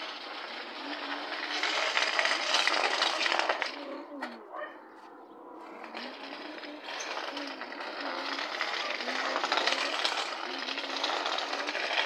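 Radio-controlled model pickup driving over brick paving: its motor and gears whirring and its wheels rattling, growing louder as it nears, with a lull about halfway through when it eases off.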